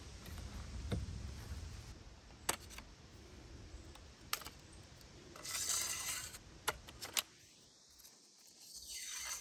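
Aluminium awning pole being put together by hand: a few sharp metallic clicks and clinks as the sections and plastic clamp fittings are fitted, with two short sliding hisses.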